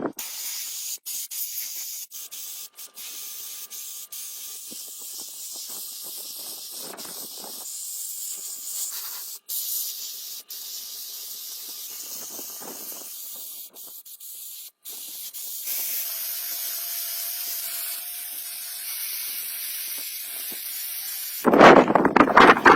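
Steady hiss of compressed air from a spray gun, in several takes cut one after another. Near the end a much louder clattering noise starts.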